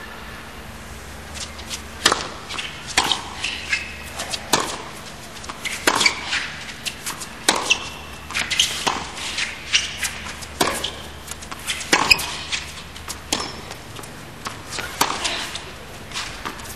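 Tennis rally: sharp racquet-on-ball strikes and ball bounces, a hit about every second and a half, starting about two seconds in over a steady low hum of the arena.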